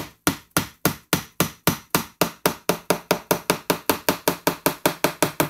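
A mallet tapping lightly and steadily on the spine of a one-piece, full-tang kitchen knife, about four strikes a second, driving the blade slowly through a raw spaghetti squash.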